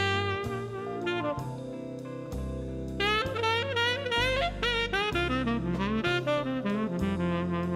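Big band jazz recording: a saxophone plays a lead line with quick runs and pitch bends over bass and drums.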